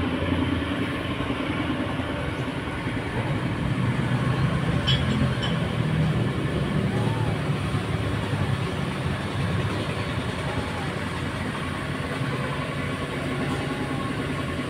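A steady, fairly loud low rumble of background noise, with a few faint, short rising-and-falling chirps in the second half.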